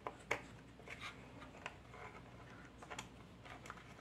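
Faint metallic clicks and ticks of a small 7 mm open-end wrench working nuts loose on an electric shower's electronic control board. Two sharper clicks come in the first half second, then scattered light ticks.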